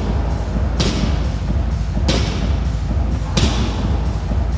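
Loaded barbell with rubber bumper plates touching down on the rubber gym floor in repeated deadlifts, a sharp knock with a little echo about every second and a quarter, over a steady low rumble.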